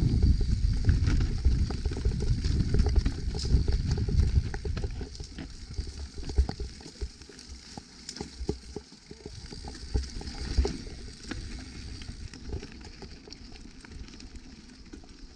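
Evil Insurgent mountain bike descending a dirt trail: tyres on dirt and roots, with rattles and knocks from the bike over the bumps. Heavy wind rumble on the microphone eases after about four seconds.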